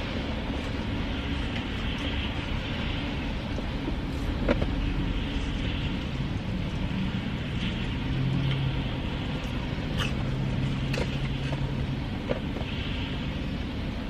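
Steady low rumble of a car running, heard from inside the cabin, with a few small clicks and smacks from eating.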